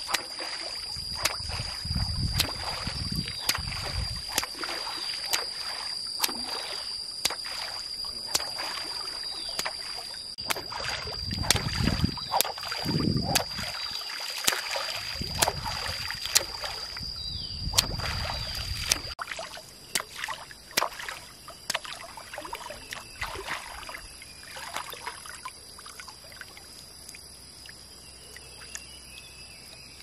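Pond water splashing and sloshing around a person wading waist-deep and flicking a fishing rod, with irregular splashes and drips. A steady high-pitched tone runs underneath and weakens about two-thirds of the way in, where the water sounds also become quieter and sparser.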